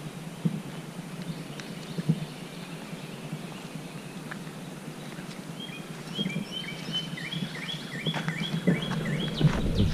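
A small songbird singing a quick run of short, repeated chirps from about six seconds in, over steady outdoor background noise, with a few soft thumps of footsteps on the trail.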